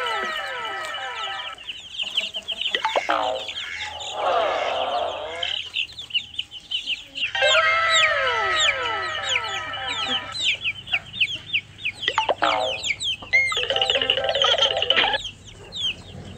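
Chickens clucking and peeping in clusters of short, repeated falling calls.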